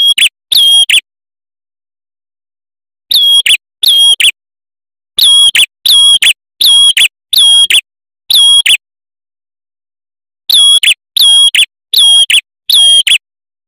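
Male ashy tailorbird (red-headed prenjak) singing: loud, sharp, ringing notes delivered in quick half-second bursts, strung into runs of two to six bursts with a few seconds' pause between runs.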